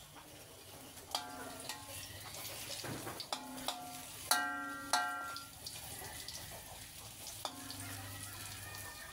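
Banana slices sizzling in a little hot oil in a metal wok. A metal spatula knocks against the wok again and again as it turns them, each knock ringing briefly; the two loudest come about four and five seconds in.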